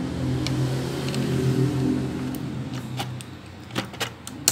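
Small sharp clicks of a speaker wire connector being fitted by hand onto a radio's circuit board, over a low steady-pitched hum that swells and then fades out about three seconds in.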